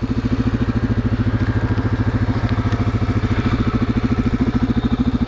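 Motorcycle engine idling steadily, with an even, fast pulsing beat.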